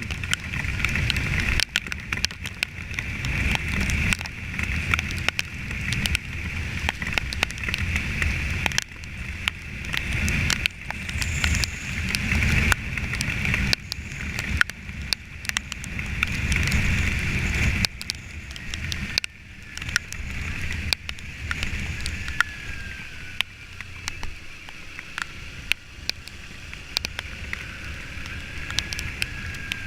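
Kawasaki Ninja 300 motorcycle riding along, its engine and road noise mixed with heavy, uneven wind buffeting on the camera's own microphone.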